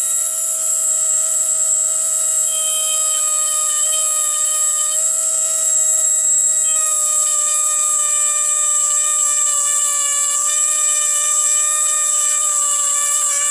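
Die grinder running steadily, grinding ribs out of a small part: a loud high whine over a hiss, its pitch wavering slightly throughout.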